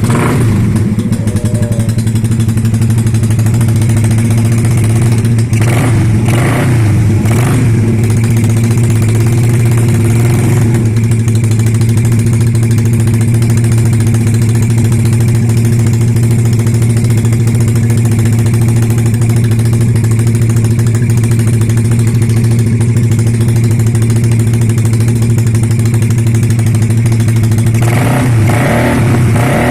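Yamaha Mio scooter's single-cylinder four-stroke engine idling at a steady pitch.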